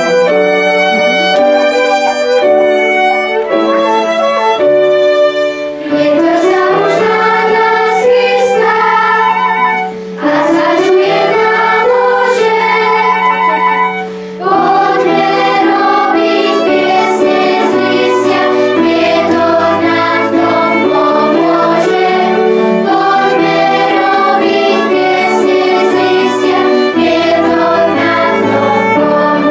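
Children's choir singing with instrumental accompaniment. The voices slide upward in pitch twice, about six and ten seconds in, then carry on in full chords.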